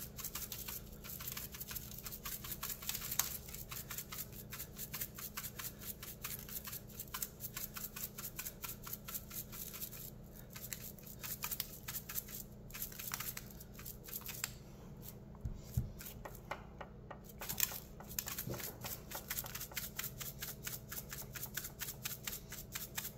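Seasoning shaken out of a shaker bottle onto a steak: a fast, uneven run of small rattles and ticks, with a few louder knocks of the bottle.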